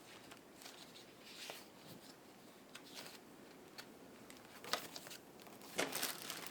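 Faint rustling and light handling of paper leaflets and cardboard packaging, with short scratchy rustles and a louder rustle near the end.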